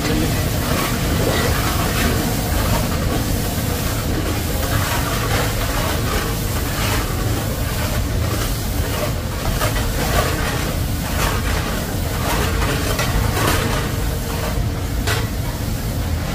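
Ginger and whole spices sizzling and crackling in hot oil in a large iron kadai, with irregular pops from cardamom pods bursting in the heat, over a steady low rumble.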